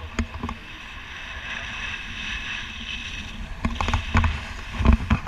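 Wind noise on the microphone of a paraglider in flight: a steady rush of air with irregular low buffeting thumps, bunching together near the end.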